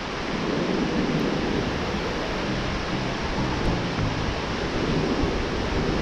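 Ocean surf breaking and washing up a sandy beach in a steady rush, with wind buffeting the microphone as a low rumble.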